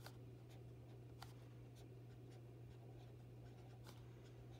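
Felt-tip marker writing on a paper index card: faint, short scratchy strokes, over a steady low hum.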